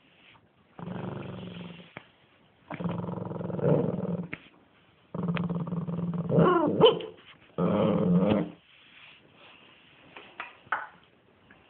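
Shih tzu growling in play: four growls of one to two seconds each, the third rising into a sharp higher cry about six and a half seconds in, followed by a few faint short sounds near the end.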